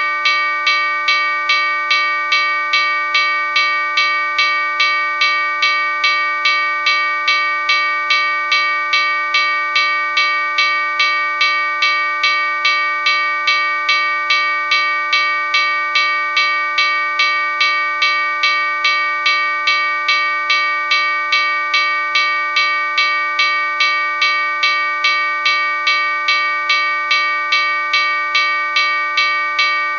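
Locomotive bell ringing steadily, struck about twice a second, each clang ringing on into the next.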